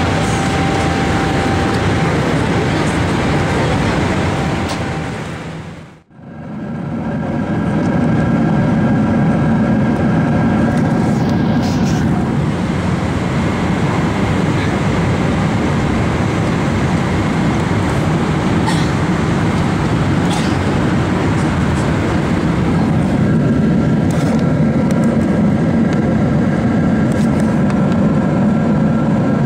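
Steady cabin noise of a Boeing 777 airliner in flight: the drone of airflow and engines, with faint steady tones over it. It fades out briefly about six seconds in and comes back.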